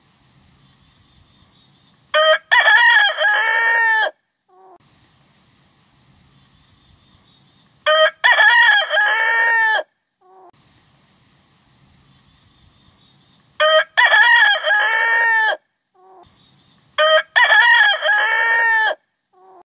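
Rooster crowing four times, each crow about two seconds long and opening with a short note. Faint short clucks come between the crows.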